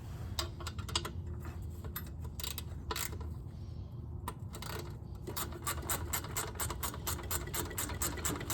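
Small socket ratchet wrench working a small bolt: a few scattered clicks and taps at first, then steady rapid ratchet clicking, about six clicks a second, from about five seconds in.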